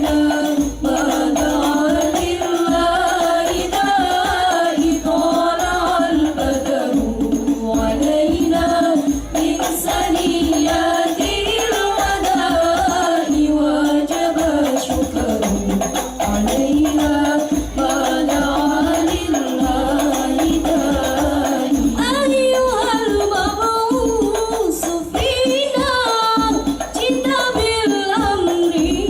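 Al-Banjari hadrah ensemble performing: a singer carries a wavering devotional melody over the steady beating of hand-played terbang frame drums, with more voices joining the melody about two-thirds of the way through.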